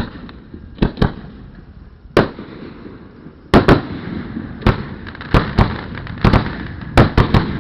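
Fireworks shells bursting overhead in a series of sharp bangs, a few at first and then coming thick and fast from about three and a half seconds in, with a low rumble between them.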